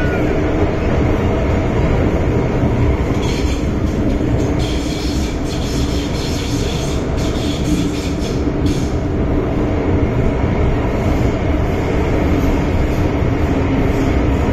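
Inside a carriage of an MTR Island Line M-Train underground, the train runs at speed with a loud, steady rumble of wheels on rail and a low hum. From about three to nine seconds in, a stretch of higher-pitched rattling rides on top.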